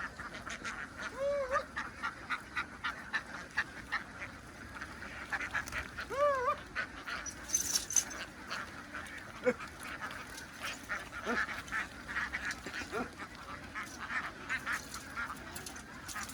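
A large flock of domestic ducks quacking, a dense, unbroken chatter of many short overlapping calls.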